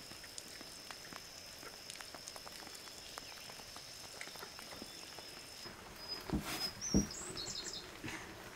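Quiet rural outdoor ambience: a thin steady high-pitched tone that stops about six seconds in, two dull knocks shortly after, and a few short high chirps near the end.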